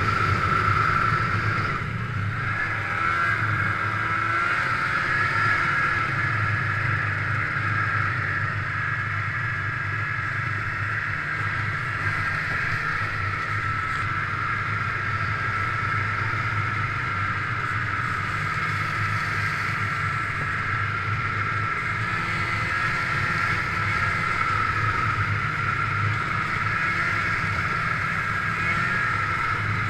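1997 Ski-Doo MX Z 583 snowmobile's two-stroke twin engine running steadily at trail speed, easing off slightly about two seconds in.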